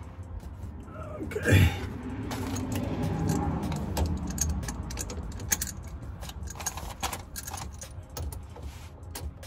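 Irregular metallic clinks and handling noise of hand tools as a rear differential fill plug is being worked, with one louder brief sound of falling pitch about a second and a half in.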